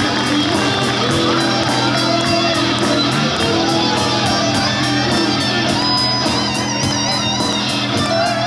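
Live band music: strummed electric guitars over a drum kit keeping a steady beat, with keyboard. A wavering high melody line comes in about six seconds in.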